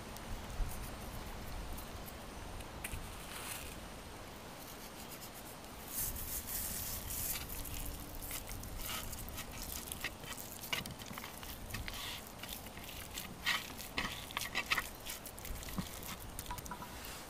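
A hand rubbing dried rosemary into a raw chicken breast on a wooden cutting board: soft patting and scraping with many small clicks, busier from about six seconds in.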